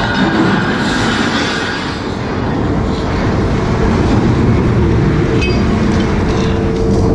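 Loud steady mechanical rumble and rushing noise on a trawler's working deck, with a faint steady hum underneath.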